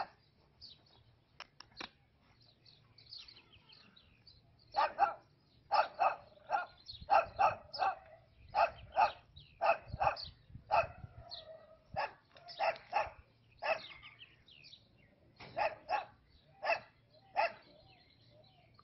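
Belgian Malinois barking in bite-sleeve protection training, worked up by a decoy: a few single sharp barks at first, then from about five seconds in runs of quick barks, about two a second, broken by short pauses.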